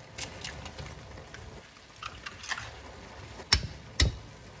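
Fresh eggs being cracked on the rim of a stainless steel pan, with two sharp knocks close together near the end. Underneath is a faint crackle of vegetables simmering in the pan.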